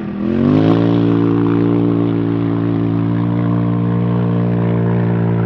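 Race side-by-side UTV's engine dipping briefly, then revving up within the first second and holding at a steady high pitch as the car accelerates away.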